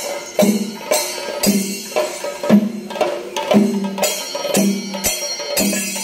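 Percussion music: a steady beat of sharp drum strikes, about two a second, over sustained pitched tones.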